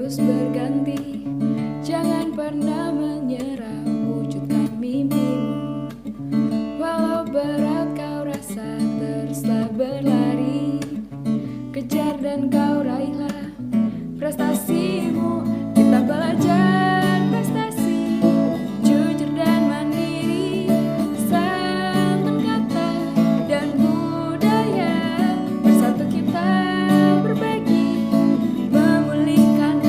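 Background music led by strummed acoustic guitar, growing fuller about halfway through, where a singing voice appears to come in.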